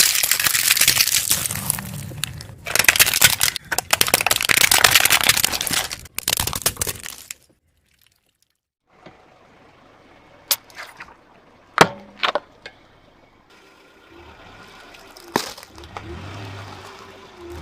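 Objects cracking and crunching as a car's tyre crushes them: a dense run of crackling and breaking for about seven seconds, then after a short break a few sharp single cracks.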